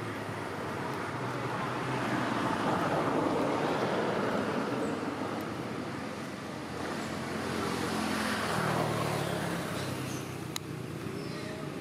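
Motor vehicles passing on a road, the engine and tyre noise swelling and fading twice, about three seconds in and again about eight seconds in. A single sharp click sounds near the end.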